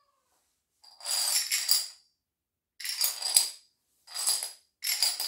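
Small plastic dominoes clattering against each other and a hard floor in four short bursts of quick clicks, the kind made as a line of them topples or is pushed together.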